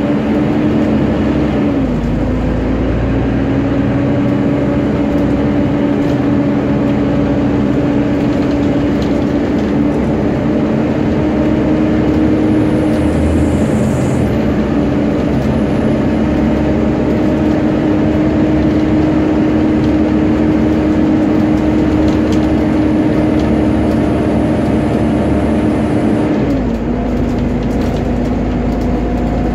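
Engine cooling fan of a Volvo B7TL double-decker bus, heard inside the upper deck, running with a steady hoover-like whine over the engine's rumble. The whine's pitch steps down about two seconds in and again near the end.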